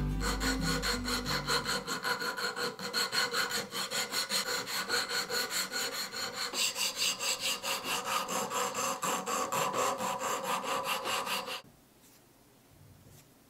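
A strip of sandpaper pulled back and forth around a carved pine lure body, shoeshine-style, making rhythmic rasping strokes about four a second. The sanding stops abruptly near the end.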